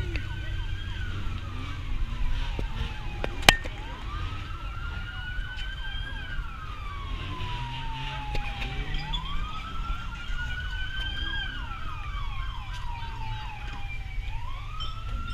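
Emergency-vehicle siren on a slow wail, rising and falling in pitch about every five seconds, over a low rumble of traffic. A single sharp knock, the loudest sound, comes about three and a half seconds in.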